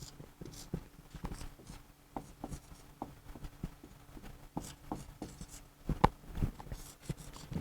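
Faint writing sounds: irregular small taps and scratches of a pen on a writing surface, over a faint steady hum.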